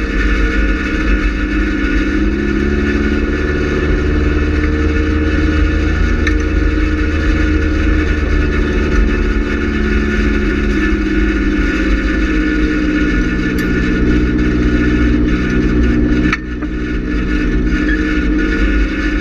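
Race car's GM Quad 4 inline-four engine running at steady high revs, its pitch wavering slightly. About three-quarters of the way through, the engine note dips briefly, then picks back up.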